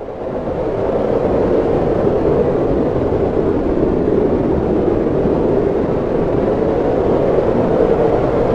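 Sound effect of hurricane-force wind: a dense, steady roar with a deep rumble underneath, swelling up over the first second or so and then holding.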